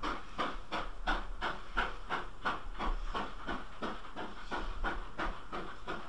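Steam locomotive exhaust beats, steady at about three a second, from a Great Western engine working hard up the Dainton bank.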